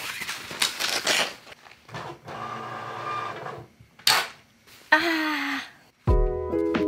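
Flat cardboard mailers being handled and shuffled, with rustling and sliding noises and a few short pitched sounds in the middle. Soft background music comes in near the end.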